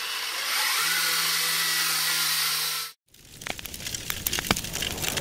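A vintage cine camera's motor whirs steadily with a low hum and cuts off suddenly about three seconds in. Then burning fire-show props crackle and snap over outdoor background noise.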